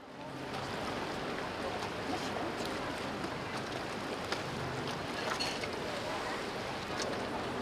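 Motor cruiser underway: its engine running with a steady low hum under the rush of water and wind, with faint voices in the background.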